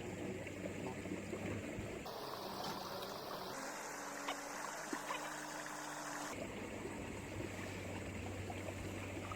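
Faint trickling and lapping of river water over a low steady hum, the background changing abruptly a few times.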